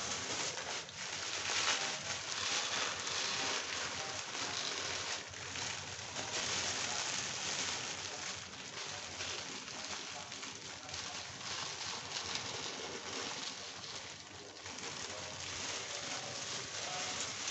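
Peanuts in a wok sizzling and crackling steadily as they fry.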